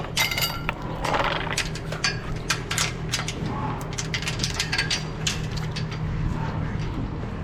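Cow eating feed at the bunk: scattered crunches and clicks over a steady low hum. A short high-pitched squeak comes right at the start.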